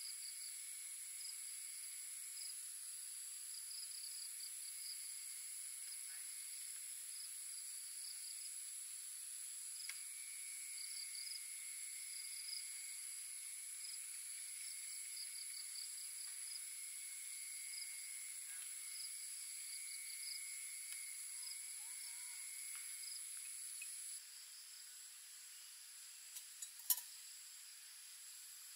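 Evening chorus of insects: steady high-pitched trilling with rhythmic pulsing chirps over it. Near the end a few light clicks and one sharp knock as metal coffee gear is handled on the table.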